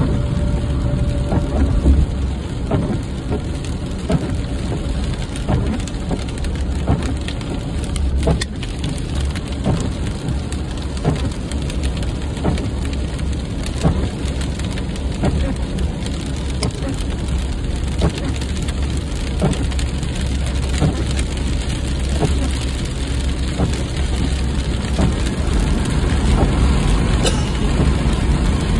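Rain on a car's windshield heard from inside the cabin while driving on a wet road, over a steady low road-and-engine rumble. Light knocks recur about once a second.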